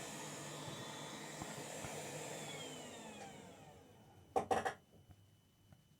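Hot air rework station blower running with a steady hiss, then winding down with a falling whine and stopping about three and a half seconds in. A short clatter follows about a second later.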